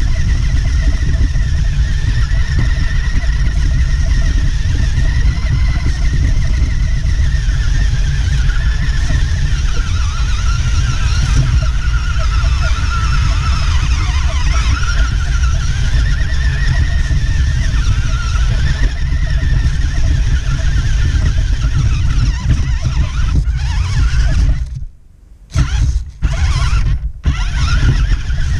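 Electric motor and gears of a 1:18 scale 4WD RC car whining, the pitch wavering up and down with the throttle, over a steady low rumble, heard from a camera mounted on the car as it drives over grass. The sound drops out briefly a few times near the end.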